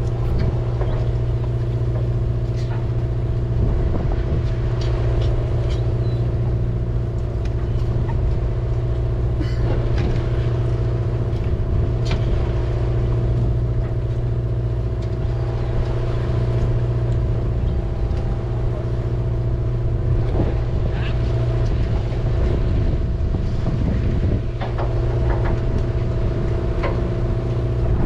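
Steady hum of a fishing boat's engine running, with scattered clicks and knocks on top.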